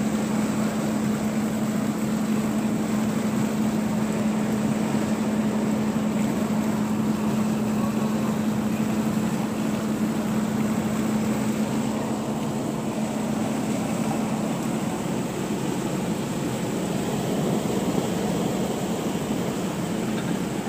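A car driving along a highway, heard from inside the cabin: steady road and engine noise with a constant low hum.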